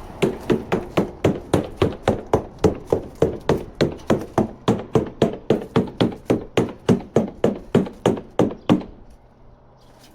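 Rapid, even tapping on the boat with a surveyor's hammer, about four taps a second, sounding the laminate for hollow or delaminated spots against solid, supported areas. The tapping stops about nine seconds in.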